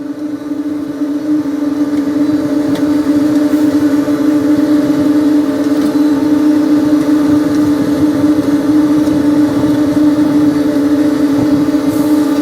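A heavy machine's engine running steadily at an even pitch, growing louder over the first couple of seconds and then holding.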